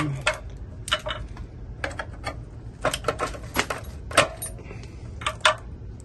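Sharp metallic clicks and clinks, about ten of them, of cartridge fuses being pulled from the spring clips of a fused disconnect switch with a multitool's pliers and handled. They are being removed because one fuse blew and all are to be replaced.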